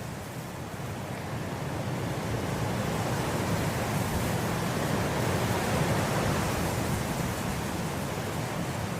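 Wind blowing through grass, a steady rush that swells into a gust over the first few seconds and eases off toward the end.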